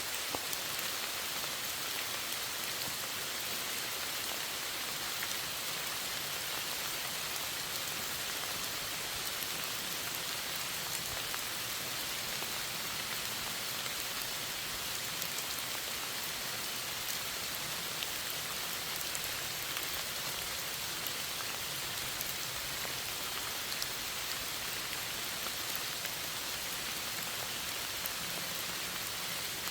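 Steady rain falling and pattering on a surface, an even hiss with many small drop ticks.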